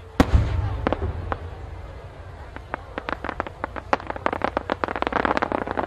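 An aerial firework shell bursts with one loud bang and a low rumble. About two and a half seconds later a run of sharp pops starts and thickens into dense crackling near the end.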